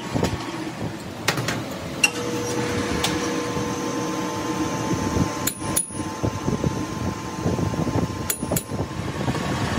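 Sharp knocks and taps of tools on metal parts, about eight of them and irregularly spaced, some in close pairs, over a steady machine hum.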